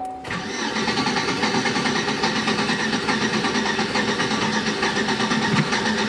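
Older Chevy Tahoe engine cranking over on its starter, with a regular pulsing cadence and no change in pace. The cranking cadence is the sign of the low-compression problem in this engine, on a weak battery and a starter that is going out.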